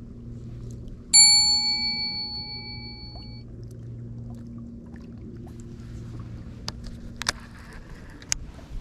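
A single bright bell-like ding about a second in, ringing out and fading over about two seconds. A few sharp clicks follow near the end.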